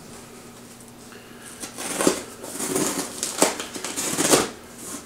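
Packing tape being peeled off a cardboard shipping box: a rasping, tearing noise with a few sharp crackles, beginning after a short quiet spell and stopping just before the end.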